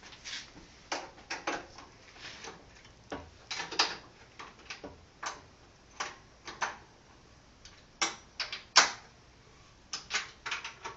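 Spanner working the clamp bolts on a mill-drill's head: irregular metallic clicks and knocks as the bolts are tightened down, some with a short ring.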